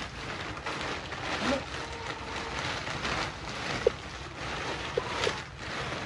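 Plastic tarpaulin rustling and crinkling in repeated swells as it is lifted and gathered up by hand, with a few short squeaks near the middle.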